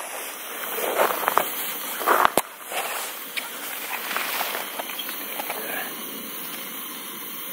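Coleman liquid-fuel camp stove burning with a steady hiss under a kettle of water heating toward the boil. A few sharp knocks and clinks, the loudest about two seconds in, come from metal mugs and tumblers being handled beside it.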